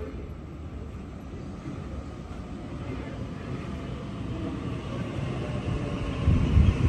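Sydney Trains Waratah double-deck electric train approaching along the platform. Its rumble and a faint whine grow steadily louder, with heavy wheel thuds near the end as the front cars draw level.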